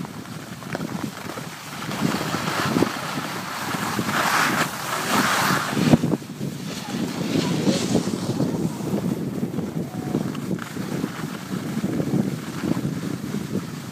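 Wind buffeting the microphone of a skier going downhill, with skis scraping over packed, groomed snow; it grows louder, with a brighter hissing stretch around four to six seconds in.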